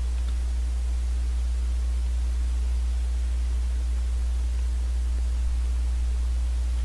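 Steady low electrical hum with hiss over it, the noise floor of the microphone and recording chain; nothing else stands out.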